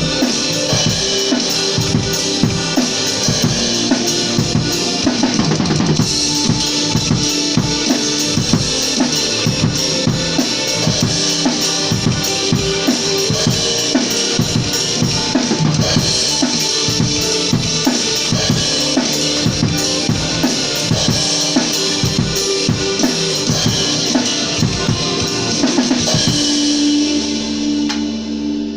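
Band music driven by a drum kit playing a busy, steady beat with bass drum and snare. Near the end the drums stop and a final held chord rings out and fades.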